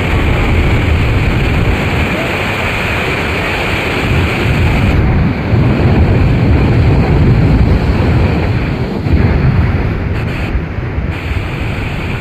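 Loud, steady rush of heavy falling or churning water, with wind buffeting the microphone in gusts.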